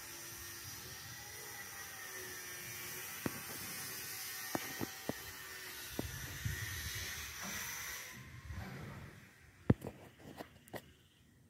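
A steady hiss for about eight seconds, then quieter, with several sharp clicks and knocks as the phone is handled and turned around near the end.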